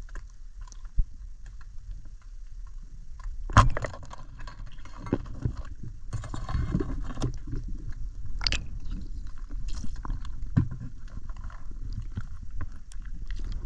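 Underwater sound picked up by a camera in its housing: a low muffled rumble with scattered clicks and knocks, and one sharp loud knock about three and a half seconds in.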